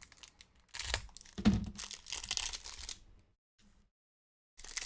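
Crinkling and tearing of a trading card pack's wrapper as it is ripped open and handled, in a few irregular bursts. The sound then cuts out to dead silence for about a second and a half before resuming near the end.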